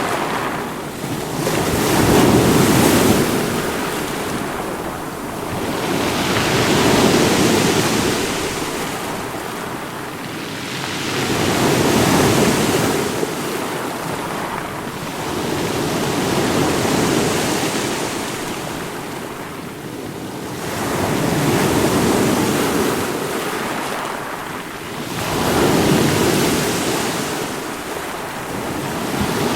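Ocean waves washing in and out: a steady rush of surf that swells and ebbs about every five seconds, six times over.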